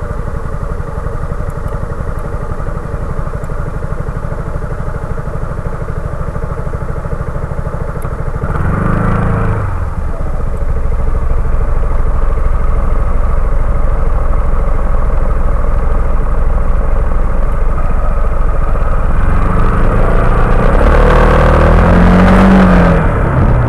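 Motorcycle engine running steadily at low revs, then revving up about nine seconds in as it pulls away and running louder from there on, with another rise in revs that drops back near the end.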